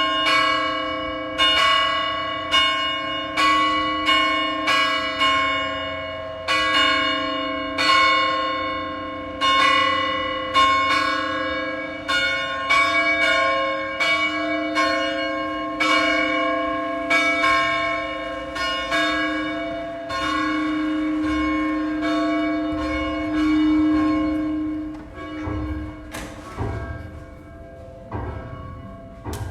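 Church bells ringing, struck about once a second, each stroke ringing on into the next. The strokes stop a few seconds before the end and the ringing dies away.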